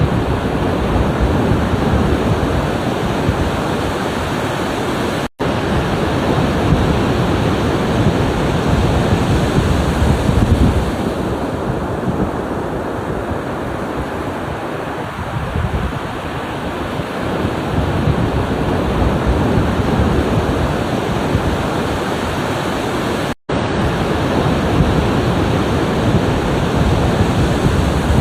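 Ocean surf washing on the shore: a steady rushing that swells and eases as the waves come in. The sound cuts out for an instant twice.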